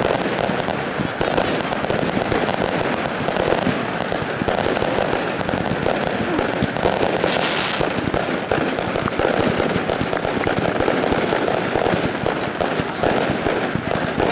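Fireworks going off in a dense, continuous barrage of bangs and crackles, with a short hissing burst about halfway through.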